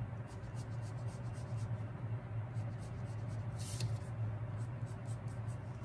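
Pencil drawing on paper: a run of short scratchy strokes, with one longer, louder stroke a little after halfway, over a steady low hum.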